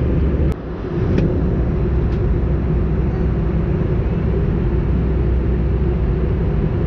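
Steady low rumble of cabin noise inside an Airbus A320 in flight, engine and airflow noise with a deep hum. A sharp click about half a second in, with a brief dip in the rumble after it.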